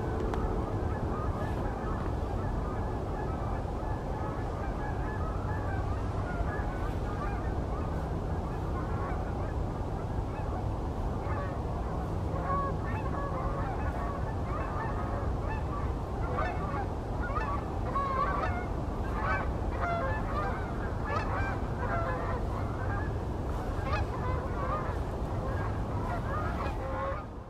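A flock of geese honking, the calls sparse at first and growing dense from about halfway through, over a steady low background rush.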